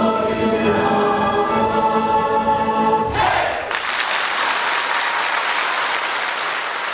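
Kolo folk dance music ends on a held chord about three seconds in, and the audience breaks straight into applause.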